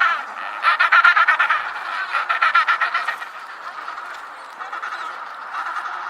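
An animal calling in bouts of rapid, pulsed chattering trills, each bout under a second long. The bouts are loudest in the first half, then run on more softly.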